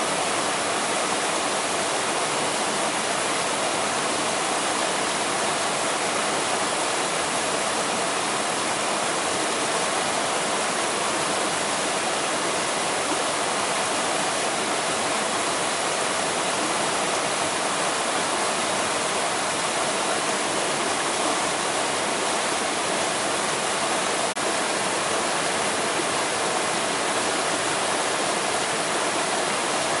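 Flowing water rushing steadily, with no change in level.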